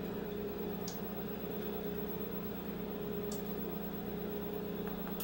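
Steady low hum with a second, higher tone above it and a light hiss, like a small motor or appliance running in a room. Three faint, very short high ticks break it, about a second in, past three seconds and near the end.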